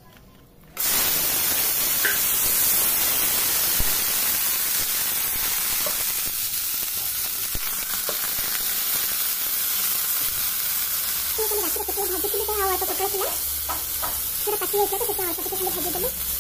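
Pointed gourd (potol) pieces tipped into hot oil in a kadai, sizzling loudly from about a second in and frying steadily while a spatula stirs them.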